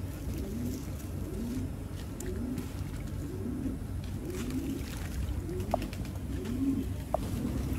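Domestic pigeon cooing over and over, about one coo every three-quarters of a second, each coo rising and then falling in pitch.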